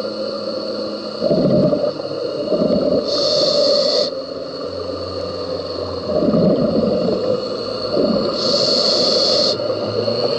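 A scuba diver breathing through a regulator, heard underwater. Two inhalations come as hisses of about a second each, and between them are long bubbling rushes of exhaled air.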